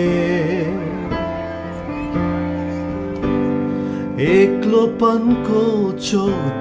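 A slow Nepali prayer song: a singer holds a wavering note over sustained instrumental accompaniment. The accompaniment carries on alone for a few seconds, then the voice comes back in about four seconds in.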